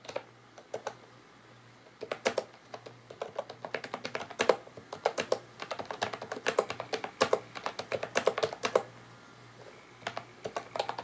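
Typing on a retro typewriter-style keyboard with round keycaps, a run of quick key clicks. A few scattered keystrokes come first, then fast continuous typing from about two seconds in; it pauses briefly near the end and starts again.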